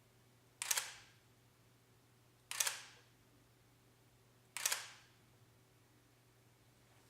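Nikon D40X digital SLR firing three test shots about two seconds apart, each a quick double clack of mirror and shutter, after its sticking shutter-drive gear wheel has been freed.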